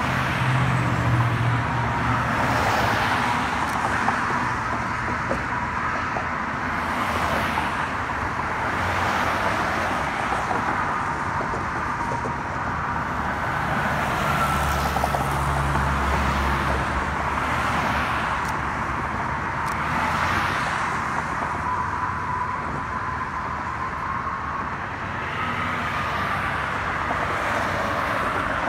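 Road traffic passing close by: cars go past one after another every few seconds, each a rising and falling tyre whoosh over a steady traffic hum. A deeper low rumble swells for several seconds about halfway through.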